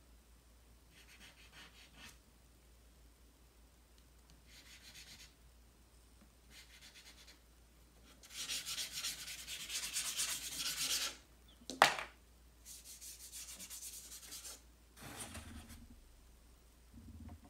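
Charcoal being rubbed and blended across drawing paper by hand, in a series of separate rubbing bursts; the longest and loudest comes about eight to eleven seconds in. A single sharp tap just after it is the loudest sound.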